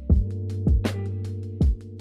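Background music: drum hits over sustained low notes.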